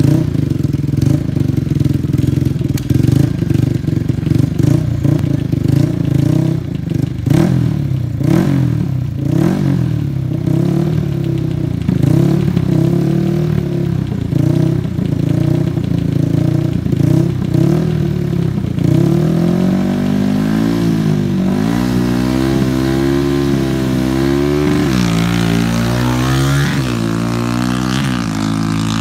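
Drag-racing quad's engine revved in short repeated blips while staged at the start line. About two-thirds of the way in it launches at full throttle, the pitch climbing, dropping and climbing again through the gears as it pulls away down the sand strip.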